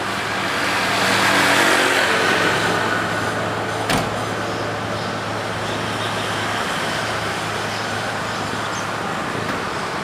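Motor vehicle running with road traffic noise: a steady engine hum, a whoosh that swells and fades about a second in, and a single sharp knock about four seconds in.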